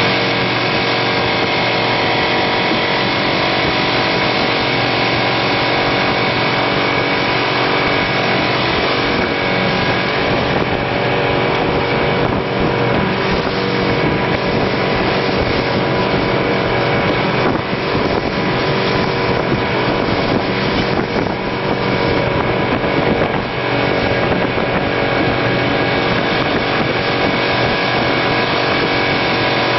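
Motorboat engine running steadily while the boat is under way, with wind noise rushing over the microphone.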